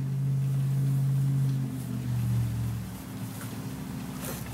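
Rebuilt 8.3L Cummins six-cylinder diesel with an inline injection pump running on its first start after the rebuild. Its note rises slightly about two seconds in, then drops back and goes quieter about three seconds in while it keeps running.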